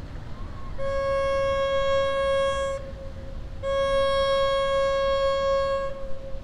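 Boat horn sounding two long blasts of the same pitch, each about two seconds, with a short gap between them.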